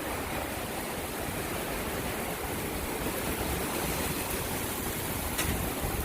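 Steady rushing roar of a tornadic thunderstorm's wind and rain, with a brief click about five seconds in.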